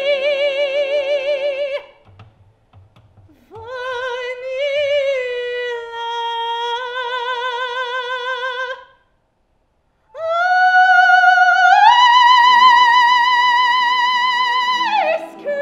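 A woman singing in a trained soprano voice with strong vibrato: a held note, a short sung phrase, a brief pause, then a climb to a long, loud high note that drops away near the end.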